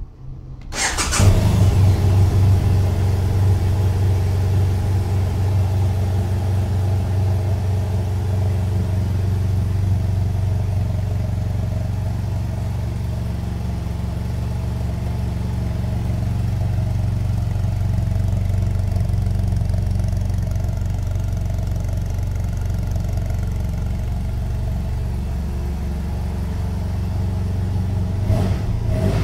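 BMW F800GS Adventure's 798 cc parallel-twin engine cranked on the electric starter and catching about a second in, then idling steadily.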